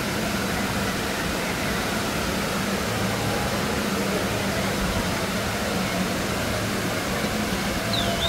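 Steady rushing noise with a low mechanical hum, and a short high chirp near the end.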